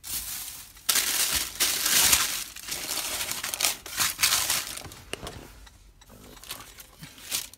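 Subway's paper sandwich wrapper crinkling and rustling as a sub is unwrapped by hand. It is loudest in the first few seconds, then settles into softer, scattered crinkles.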